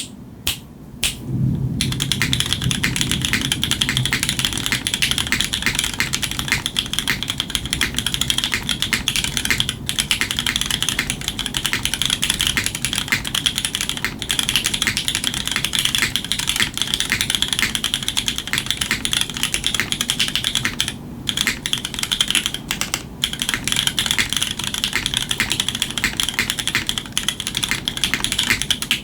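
Fast continuous typing on a custom 84-key mechanical keyboard with unlubed MX Black linear switches in a PEI plate and GMK keycaps. The sound is a dense run of clacky keystrokes, with a few separate presses at the start and two brief pauses later on. The builder calls the board's sound clean and clacky, with some hollowness.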